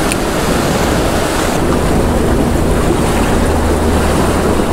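Ocean surf washing against a rocky shore: a steady rushing noise, with a faint low hum joining about one and a half seconds in.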